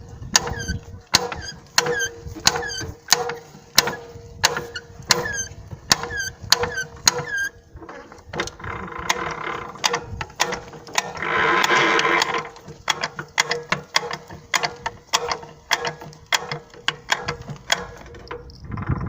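Ratchet pawls of homemade wheel unlockers on a walk-behind tractor clicking over and over, about two to three clicks a second, over a steady hum. A louder rushing noise swells briefly past the middle.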